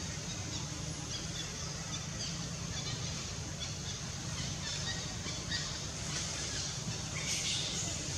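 Outdoor forest ambience: a steady high hum with a low rumble underneath, and a few short faint bird chirps in the first seconds. The high sound grows louder near the end.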